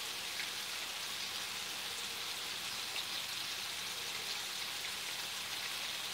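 Chunks of stew beef searing in bacon grease in a hot pan: a steady sizzle with a few small pops.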